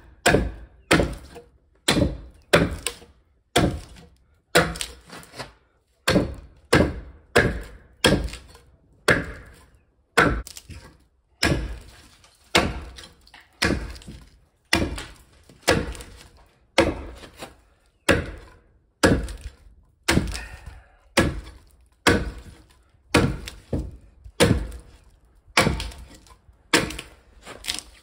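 Axe hewing a green log with bark on, chopping along its side in a steady rhythm of sharp woody strikes, a little over one a second.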